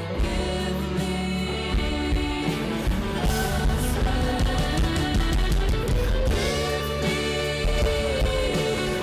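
Live rock band playing an instrumental passage, led by guitar over drums.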